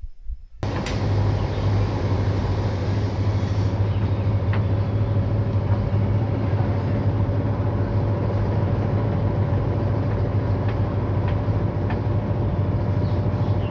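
Washing machine running its spin cycle at about 800 rpm: a loud, steady motor hum with a rushing drum noise and a few faint ticks. It starts about half a second in.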